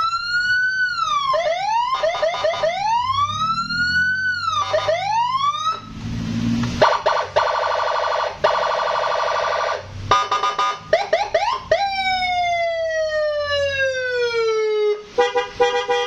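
Aftermarket electronic police-style siren (sirine patwal), switched through its tones: repeated rising-and-falling wails, then a steady buzzing horn-like tone, a few quick short yelps, a long falling tone, and a steady horn tone near the end.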